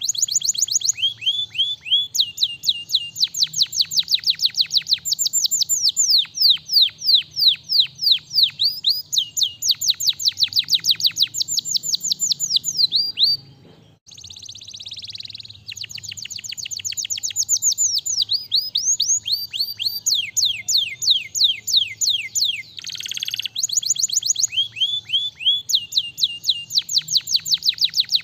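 Domestic canary singing long runs of fast, repeated notes, each a quick downward sweep, changing from one trilled phrase to the next. The song stops briefly about 13 seconds in, then starts again.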